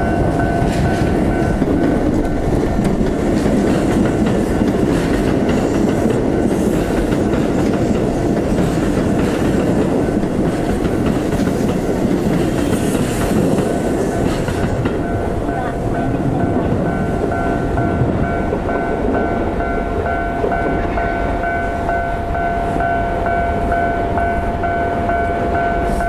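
Railway level-crossing warning bell ringing steadily while a train runs past over the crossing with a dense rumble and wheel clatter, louder and hissier around the middle as the cars pass closest.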